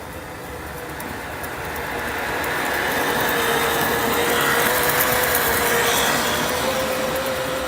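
A steady mechanical whir with a humming tone over a broad hiss, growing louder towards the middle and easing off again.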